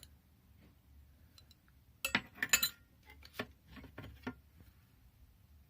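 Steel spanners clinking against each other as they are handled in a metal toolbox drawer: a quick run of sharp clinks about two seconds in, then a few single clinks.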